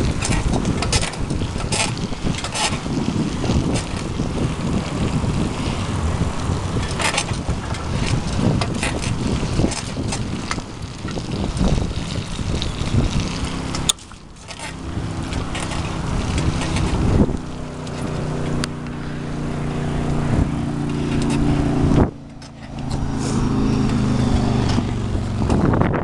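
Bicycle ridden along a paved path, with wind buffeting the microphone and the bike's squeaky frame and parts clicking and rattling irregularly. About halfway through the rattling eases and a steady low pitched hum comes in, broken off briefly near the end.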